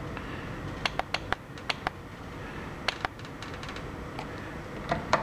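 Push buttons on the handheld data terminal of a Wren 100 turbine ECU clicking as they are pressed to step through its menu. About ten sharp clicks come at irregular spacing, some in quick pairs, over a steady low background noise.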